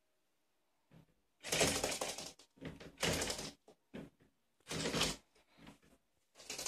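Rabbit scratching at and pushing a glass-panelled door, rattling it in several bursts of about a second each.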